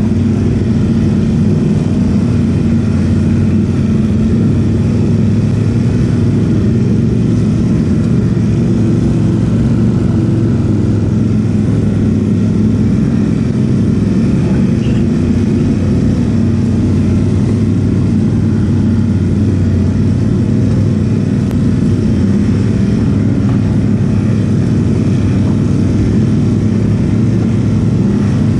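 ATV engine running steadily under way, loud and even, with no revving up or down.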